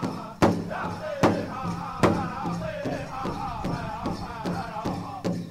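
Background powwow music: a drum beating steadily with voices singing over it. A few heavy beats come early, then quicker, lighter beats as the singing carries on.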